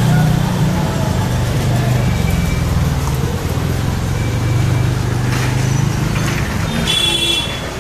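Motorcycles passing at close range over a steady low traffic hum, with a short high-pitched beep about seven seconds in.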